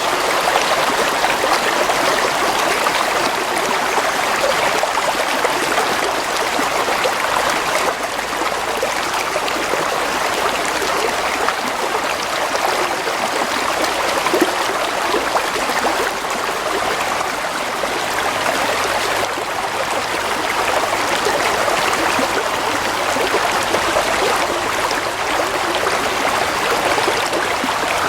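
Steady rushing and babbling of a flowing stream, an even water noise with no pauses or single loud splashes.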